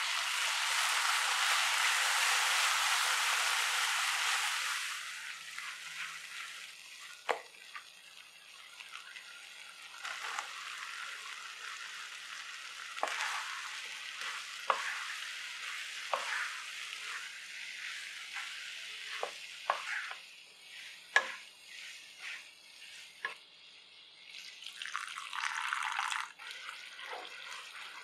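Onion-tomato masala sizzling loudly in a hot nonstick kadai for the first few seconds as curd is stirred into it, then a wooden spatula scraping and knocking against the pan at irregular intervals as cauliflower florets are tossed through the masala. A short second burst of hissing comes near the end.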